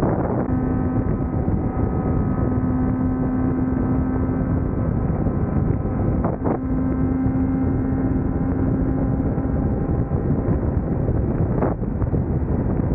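Motorcycle engine running at steady speed under heavy wind rush on the microphone while riding, its note holding level and broken twice, about six and a half seconds in and near the end.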